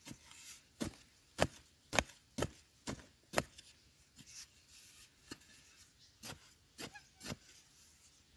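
A metal digging blade stabbing repeatedly into dry, sandy soil, loosening earth to dig out a wild yam tuber. About a dozen sharp strikes come roughly two a second, with a short lull a little past the middle.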